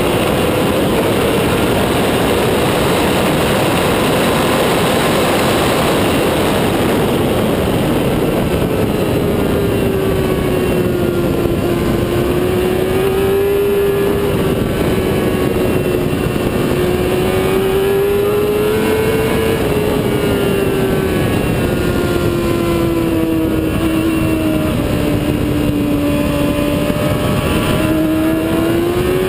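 Motorcycle engine running hard at track speed, its note sinking and rising slowly rather than jumping through gear changes, over a heavy, steady rush of wind noise on the bike-mounted camera.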